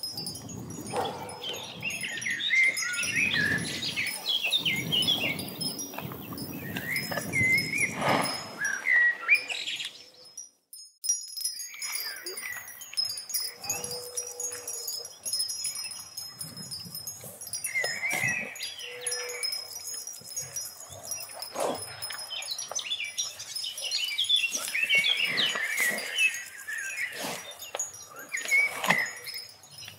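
Wind chimes tinkling in irregular clusters of bright notes over a faint steady high tone, dropping out briefly about ten seconds in.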